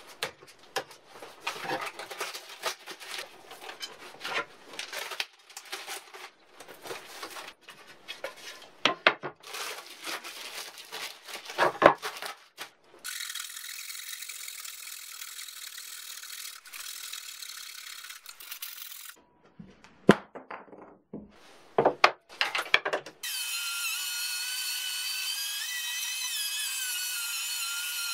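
Irregular scraping and sharp knocks from wood and metal bar clamps being set on a wooden frame, then a hand saw rasping through wooden blocks flush with a cured epoxy surface for several seconds. A few knocks follow, and about three-quarters of the way through a handheld electric router starts and runs with a steady whine that wavers in pitch as it cuts.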